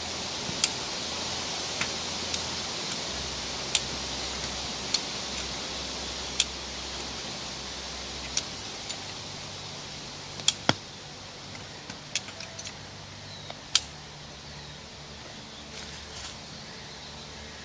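Scattered sharp clicks and knocks, irregular and a few seconds apart, the loudest a quick pair about two-thirds of the way through, over a steady outdoor rustling hiss.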